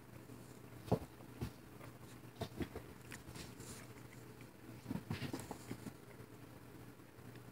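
Cats' paws knocking and pattering on a wooden floor as they pounce and scramble. The soft knocks come irregularly, the loudest about a second in and a quick cluster about five seconds in.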